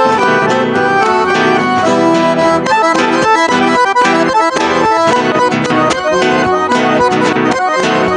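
Accordion (sanfona) playing the melody of an instrumental break between sung verses, with acoustic guitar accompaniment underneath.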